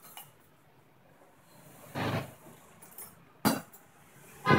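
Light handling noise between pauses: a soft knock about two seconds in and a sharp metallic clink about three and a half seconds in, as the steel drill bits are picked up.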